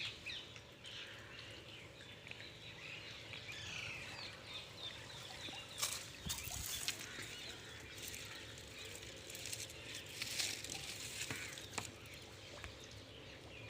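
Birds chirping outdoors with short rising and falling calls, joined by bouts of rustling and a few sharp scrapes or knocks around the middle and two-thirds of the way in.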